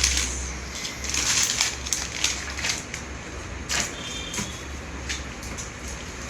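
Hands rummaging through small parts and packaging, with crinkling and scattered light clicks and knocks, over a steady low hum.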